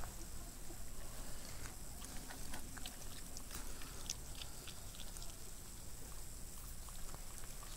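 Faint, scattered wet clicks and smacks of a Yorkshire terrier mother licking and chewing at her newborn puppy's birth sac to open it.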